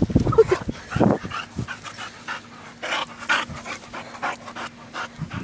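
A dog panting in a run of short, quick breaths, loudest in the first second or so.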